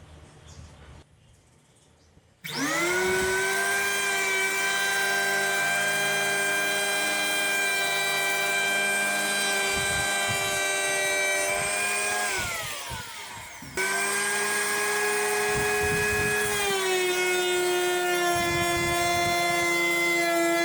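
Electric hand plane's motor spinning up to a steady high whine a couple of seconds in, then winding down in pitch near the middle. It starts running again, and its pitch dips slightly later on.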